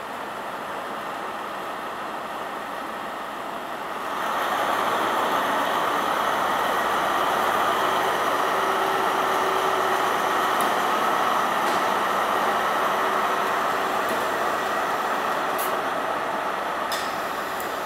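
Class 43 HST power car diesel engines under power as the train pulls out, growing louder about four seconds in and then holding steady, with a few sharp clicks near the end.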